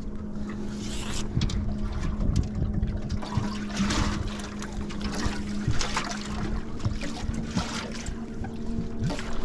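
Water splashing in irregular bursts as a hooked sockeye salmon thrashes at the surface beside the boat while being brought to the net. Under it, the steady hum of an outboard motor running at trolling speed.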